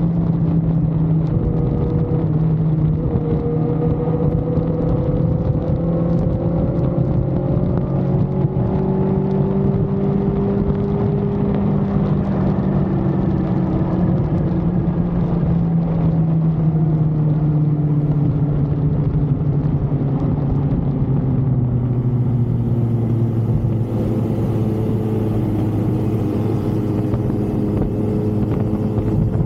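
Motor vehicle engine running steadily, its hum gradually falling in pitch. A hiss of wind or road noise comes in about two-thirds of the way through.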